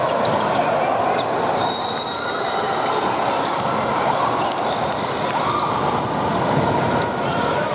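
Basketball game in an echoing gym: a ball bouncing on the court over a steady din of many voices from players and spectators, with a few brief high squeaks.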